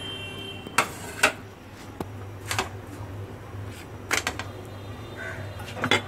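Kitchen clatter: about half a dozen sharp knocks and clinks at uneven intervals as a tawa and a mug are handled on a gas stove and counter, over a steady low hum.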